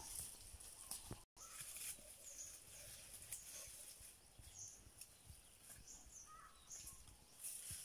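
Faint outdoor ambience: short, high bird chirps scattered over a steady high hiss. The sound drops out completely for a split second about a second in.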